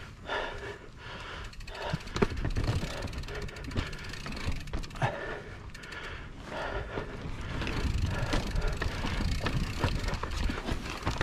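Mountain bike riding over a rough trail: steady tyre rumble with scattered knocks and rattles over bumps, and wind buffeting the microphone.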